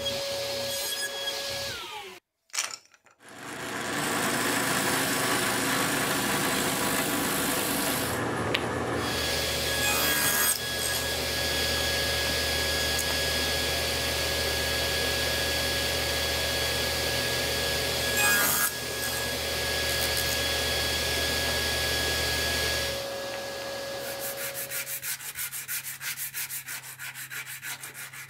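Table saw running with a steady motor whine while it cuts small wooden parts. Near the end, quick back-and-forth hand-sanding strokes rub sandpaper over wood.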